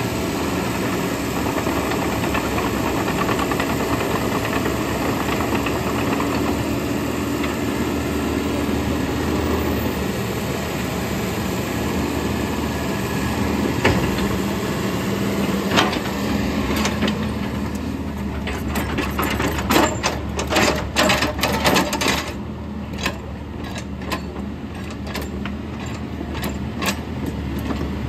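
Sany SY95C excavator's diesel engine running steadily while its hydraulics work the boom and blade. A run of sharp clanks and knocks comes about two-thirds of the way in.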